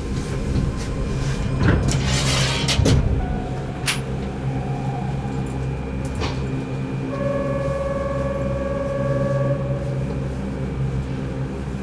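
Keihan 8000-series train standing at a station with its doors open: a steady low hum from the stopped train, a few knocks and clicks, and a steady electronic beep tone lasting about two and a half seconds past the middle.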